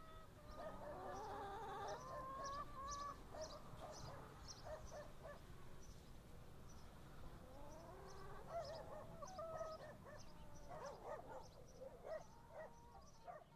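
Faint bird calls: a mix of lower, wavering calls that slide in pitch, and short high chirps repeating throughout.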